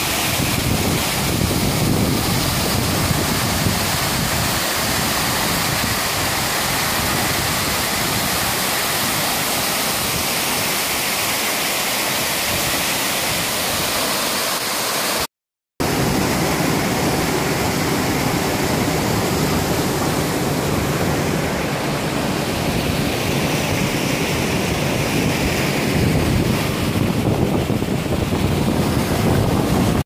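Steady rush of a waterfall plunging into a pool, broken by a moment of silence about halfway. Then a steady rush of creek water running between boulders.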